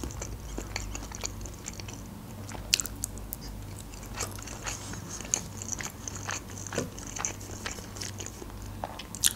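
Close-miked chewing of food: soft wet mouth clicks and small crunches at an uneven pace, with a sharper click a little under three seconds in and another at the very end.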